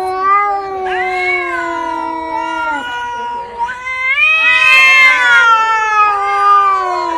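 A domestic cat yowling in long, drawn-out, wavering calls, one after another, the loudest rising about four seconds in and sinking toward the end.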